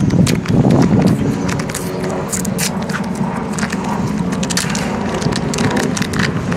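A sealed foil-type packet of roasted peanuts crinkling as it is handled, in many small sharp crackles over a low background rumble.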